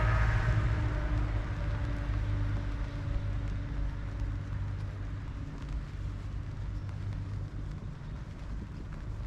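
A motor vehicle passing close by with its engine running, then fading away, leaving a low rumble of street traffic that slowly gets quieter.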